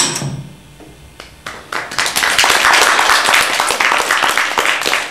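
A sharp click from a key of a cassette boombox, then an audience applauding, the clapping starting about a second and a half in and building to steady applause.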